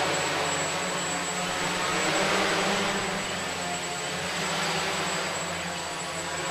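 A small electric radio-controlled aircraft flying, its propellers giving a steady whirring hiss that swells about two seconds in and eases off again as it passes.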